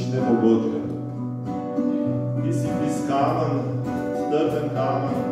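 Live worship song with no singing: an acoustic guitar strummed in chords over held bass guitar notes that change about once a second.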